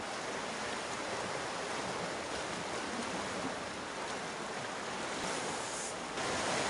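Steady wash of sea surf breaking on the rocks of the shore, a little louder about six seconds in.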